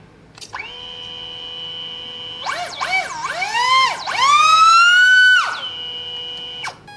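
Small brushless motor and propeller whining, held at a steady low speed, then revved up and down in quick swings, held at a higher pitch, and dropped back to the low speed before it stops just before the end.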